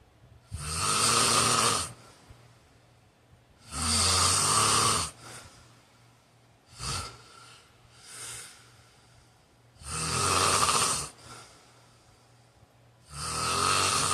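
A man snoring in his sleep: four loud snores, each lasting about a second or more, with two much softer breaths in the longer gap between the second and third.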